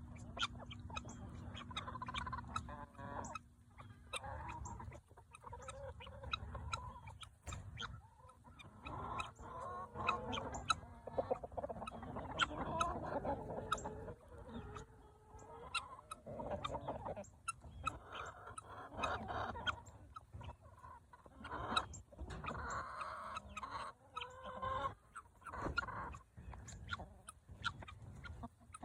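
A flock of chickens clucking and calling, with many short sharp clicks scattered among the calls.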